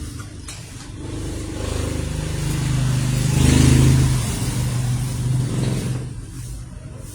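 A motor vehicle passing by: its engine grows louder, peaks with a rush of tyre and wind noise near the middle, then fades away.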